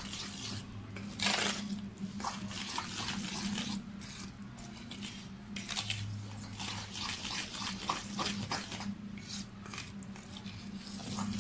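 Wet chocolate cake batter being mixed by hand in a steel bowl: irregular wet squelches and splats as the flour is worked into the milk and oil, over a steady low hum.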